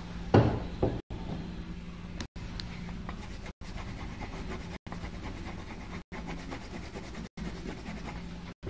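Two knocks about half a second in, then a pencil faintly scratching and rubbing on paper over a steady low hum. The sound drops out briefly about every second and a quarter.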